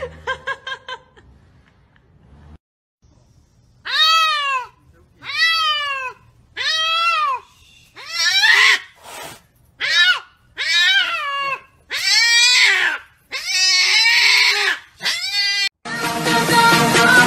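A cat meowing over and over: about ten long, drawn-out meows, each rising and then falling in pitch, a second or so apart. Upbeat music comes in near the end.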